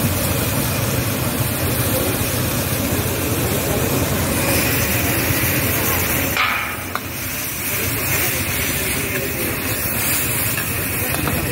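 Steady hiss of a high-flame gas burner under a wok of sizzling paneer chili, with a metal ladle stirring in the wok. The noise drops briefly about six and a half seconds in.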